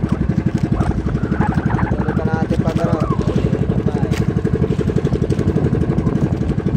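Small fishing boat's engine running steadily with a fast, even chugging beat, with a voice talking over it for a couple of seconds about a second in.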